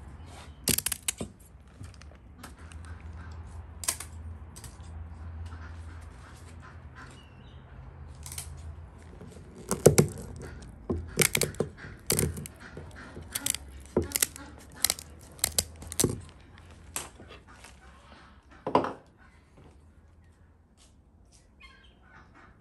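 Kitchen shears snipping through the fins of a whole grass carp on a wooden board: a series of sharp, separate snips and clicks, loudest about halfway through, stopping near the end.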